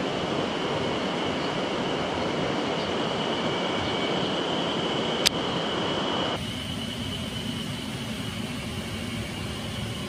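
Steady rushing of mountain river water, with a faint thin high tone over it. There is a single sharp click about five seconds in. After about six seconds the sound drops abruptly to a quieter, duller rush.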